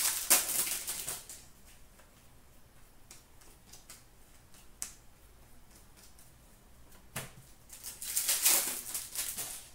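Plastic wrapper of a hockey-card pack crinkling and tearing as it is opened, in two rustling bursts, at the start and again near the end, with a few light clicks of cards being handled between.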